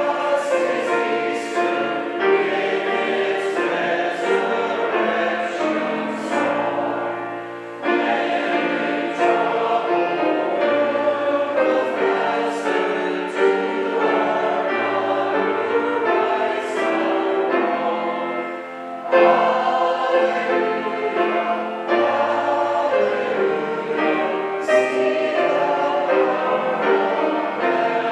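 Church congregation and song leaders singing a hymn together with piano accompaniment, with brief pauses between lines about 8 and 19 seconds in.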